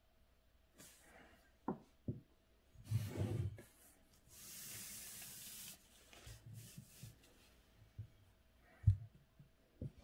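Handling of an ink brush and paper: rubbing and rustling, a steady hiss for about a second and a half midway, and several light knocks, the sharpest near the end.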